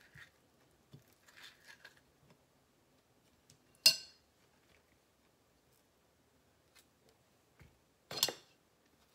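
Soft handling of overripe avocado over a ceramic bowl, then two sharp clinks of a spoon against the bowl: the louder one about four seconds in, the other near the end.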